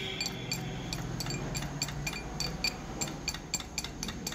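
Steel pipe tapped repeatedly down the pinion shaft onto the tail (pinion) bearing of a Tata Ace differential to seat it: light, ringing metal-on-metal clinks, about four a second.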